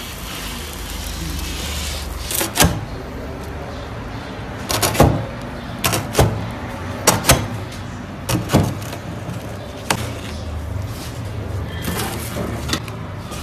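A large two-handled rocking pide knife chopping a baked pide into strips on a wooden board: about ten sharp knocks of the blade striking the wood, several in quick pairs, over a steady background hum.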